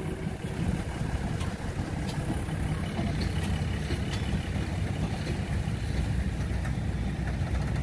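State Railway of Thailand diesel railcar train rolling slowly past, its underfloor diesel engines giving a steady low rumble, with a few faint sharp clicks.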